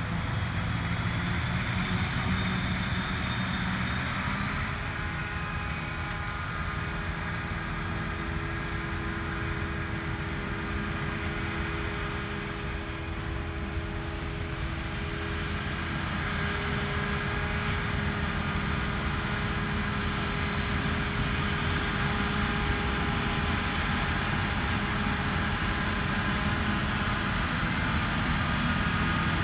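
Claas Jaguar 970 self-propelled forage harvester running under load, chopping standing corn and blowing silage up its spout into a truck's forage box: a steady engine drone with several held tones that shift in pitch a few times.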